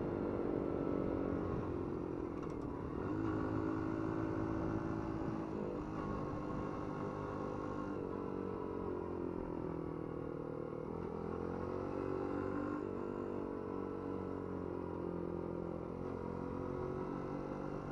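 Small Dax-style motorcycle's single-cylinder engine running under way, its pitch dipping and climbing again several times as the throttle and gears change.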